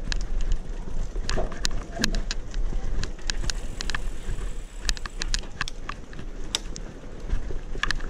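Bicycle rolling over a stone-slab paved path: a steady low rumble from the tyres, with irregular sharp clicks and knocks as it crosses the slabs.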